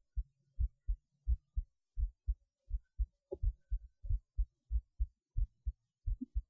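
Human heartbeat heard through a cheap acoustic stethoscope: steady lub-dub beats, each a pair of low thumps, at a little more than one beat a second.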